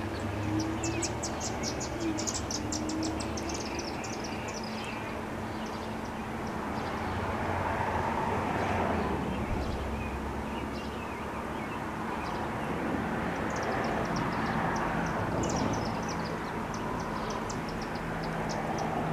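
Federal Signal STL-10 siren coasting down minutes after its blast, its rotor still turning slowly and giving only a faint low hum. Over it come high, rapid chirping trills at the start and near the end, and a broad wash of noise that swells twice.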